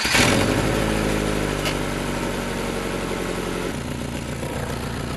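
1998 Subaru Forester's flat-four engine idling just after starting, with a steady, even pulse. Its rusted exhaust is leaking, with the catalytic converter blowing out the side. The note changes and eases slightly about three and a half seconds in.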